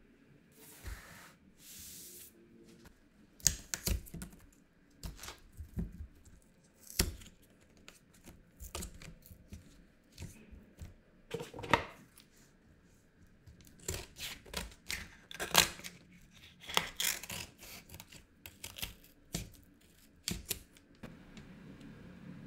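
Cardboard cartons of coconut cream being handled, set down and opened: a string of irregular taps, crinkles and short tearing rustles. A metal spoon scrapes inside an opened carton near the end.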